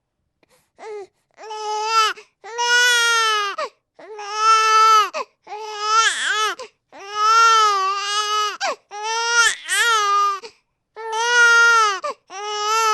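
Baby crying hard: about eight wails of roughly a second each, separated by short catches of breath, each wail arching up and down in pitch.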